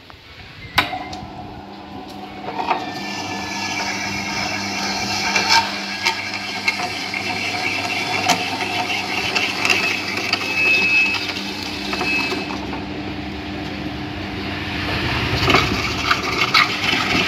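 A Lakshmi tabletop wet grinder is switched on with a click about a second in, and its motor then runs with a steady hum. A half coconut is pressed against the spinning coconut scraper attachment in the steel drum, making a continuous grating noise with occasional knocks as the flesh is shredded.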